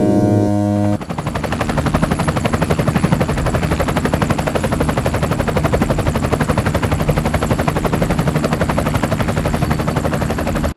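Soundtrack synth chords for about a second, then a loud, rapid, even rattle of short pulses, about ten a second, that cuts off abruptly at the end.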